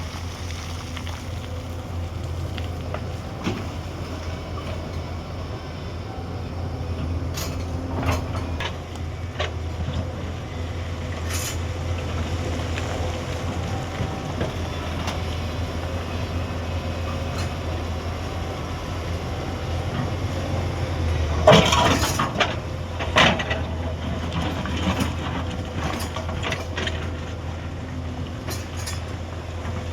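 Hyundai 210 excavator's diesel engine running steadily, with scattered sharp knocks. The loudest cluster of knocks comes about two-thirds of the way through.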